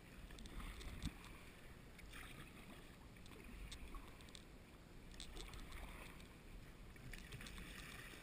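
Faint splashes of a sea kayak's paddle blades dipping into the water, recurring about every one and a half to two seconds as it is paddled along, with a soft knock about a second in.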